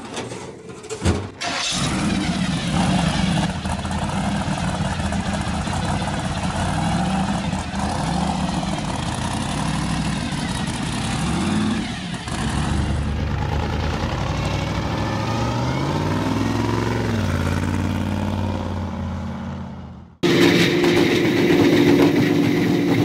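Supercharged V8 in a blown altered-style rat rod firing up with a sharp crack about a second in, then running and revving, its pitch rising and falling as the car pulls away. About 20 seconds in, the sound cuts abruptly to a louder, steady idle from another hot rod's twin supercharged engines.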